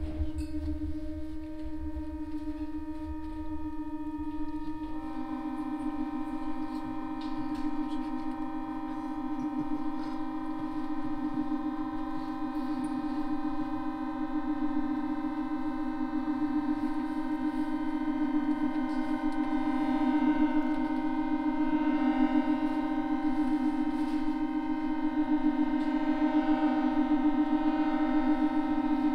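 Chromatic button accordion holding a long sustained note, joined about five seconds in by a second, lower note; the two held notes pulse slightly against each other and grow gradually louder. A low drone fades out in the first few seconds.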